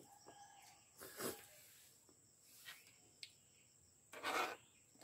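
Close-up sounds of a person eating: two short breathy noises, about a second in and again near the end, between mouthfuls. A single light click of a metal fork on the plastic plate comes in between.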